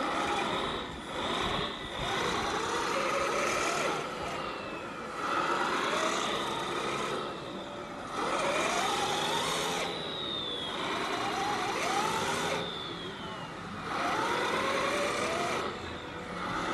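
A 1/14-scale RC tipper truck's electric drive whining in repeated bursts of throttle, its pitch rising and falling with each burst as the truck crawls through loose dirt.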